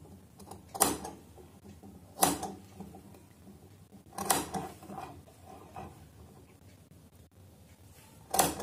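Tailor's shears snipping small clips into a fabric seam allowance: four sharp snips a second or two apart, with a few lighter snips after the third.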